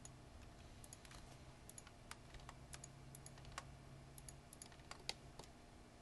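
Faint, irregular clicking of a computer keyboard and mouse, the clicks coming singly and in quick little clusters, over a low steady hum.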